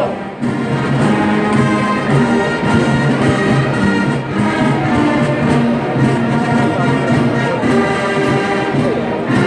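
A large military-style marching band plays a march in full, dominated by massed brass, trumpets and trombones, while it marches in formation.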